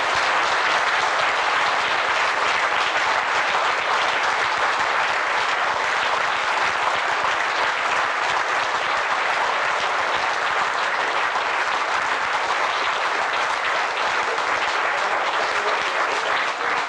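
A roomful of people applauding, a long, steady run of dense clapping that eases slightly near the end.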